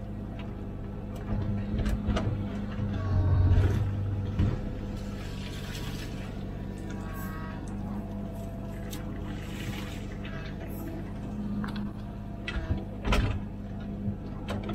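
Komatsu PC16 mini excavator's diesel engine running steadily while the arm and bucket dig, with scattered knocks and clanks from the bucket and arm; the loudest comes about 13 seconds in.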